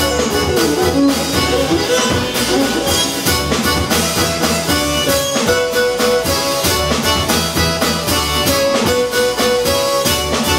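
Live band of violin, accordion, double bass and drum kit playing a tune at a quick pace, with busy drumming under the melody. A quick falling run opens the passage.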